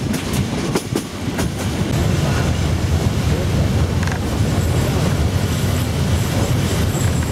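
A train running on the rails, heard from inside a carriage. A few sharp wheel clicks over rail joints come in the first second or so, then give way to a steady, louder rumble.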